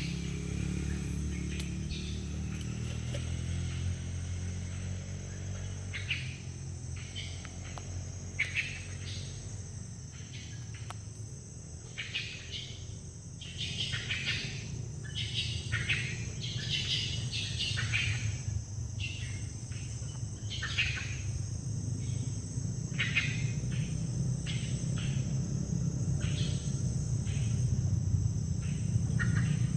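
Short, high calls from an unidentified forest animal, repeated about once a second from about six seconds in. Under them run a steady low rumble and a steady high hiss.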